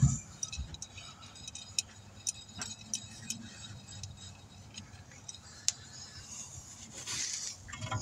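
Scattered light metallic clicks and clinks of hand tools being handled at a car's front brake caliper, with a short rustling scrape about seven seconds in.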